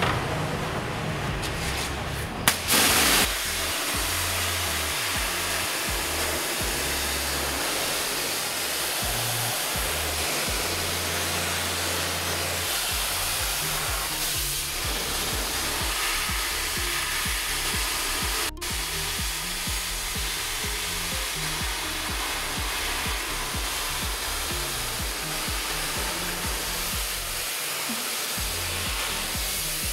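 Pressure-washer water jet hissing steadily as it blasts into a car's felt wheel-arch liner, rinsing out the dirt loosened by a chemical and soap soak; it is briefly louder about three seconds in. Background music plays underneath.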